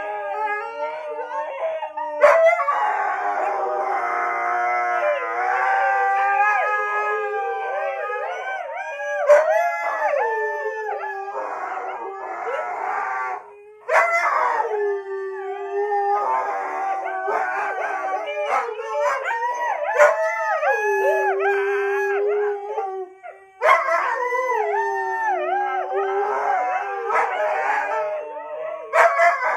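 Two huskies howling together, their long wavering howls gliding up and down in pitch and overlapping. The howling breaks off briefly about halfway through and again about two-thirds of the way in, then resumes.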